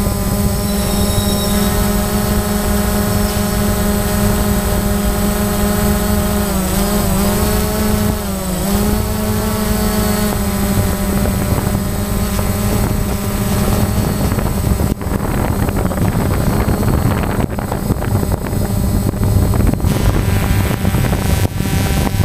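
Camera drone's motors and propellers humming steadily, the pitch dipping and coming back up twice about seven and nine seconds in as the drone changes speed.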